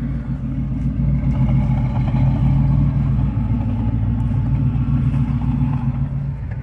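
1979 Lincoln's V8 running steadily, freshly fitted with an HEI electronic distributor and timed at about 3 degrees; it sounds pretty good.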